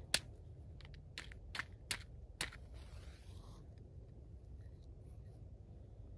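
Five sharp clicks over about two and a half seconds, then a short soft hiss, as a flame is put to rubbing alcohol in a small aluminum can stove and it catches.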